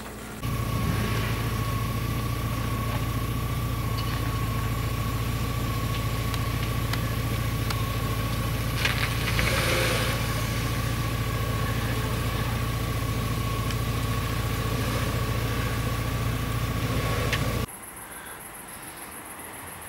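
A vehicle engine idling steadily close by, with a steady high whine over its low hum and a brief louder swell about halfway through; it cuts off sharply near the end.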